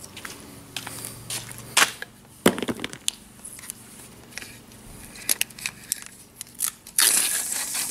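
Cloth duct tape being unrolled and pressed down along a board: scattered crackles and clicks, then a louder, longer rasping tear about seven seconds in.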